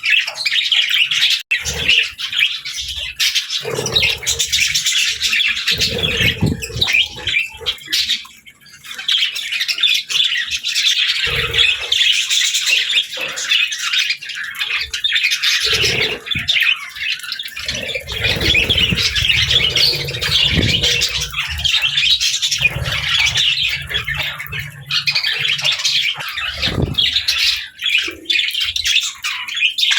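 Pet budgerigars and lovebirds chattering without pause, a dense mix of high chirps, warbles and squawks, with a short lull about a third of the way in. Occasional low thumps and rumbles sound underneath.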